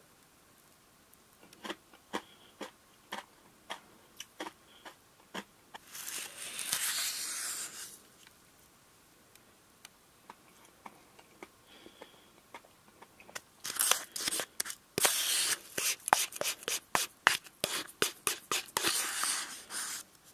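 Metal spoon crunching and scraping through granular soda-flavoured shaved ice and lacto ice in a plastic cup. Scattered light clicks come first, then a short bout of scraping about six seconds in and a longer, busier run of crunching and scraping near the end.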